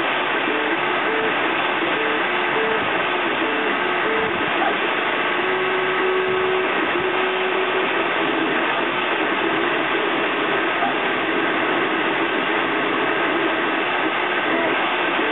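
3D printer running a print: its stepper motors whine in short tones that jump from pitch to pitch as the print head moves, one held for a second or so near the middle, over a steady fan hiss.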